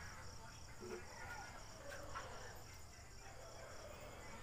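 A cricket chirping in a fast, even, high-pitched pulse, with faint voices in the background.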